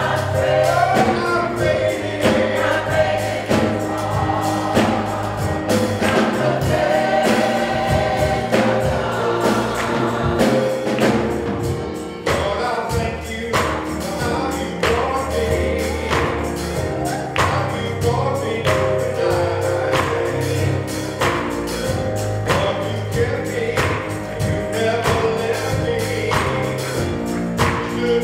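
Church gospel choir singing, backed by low sustained instrumental notes and a steady percussive beat about once a second.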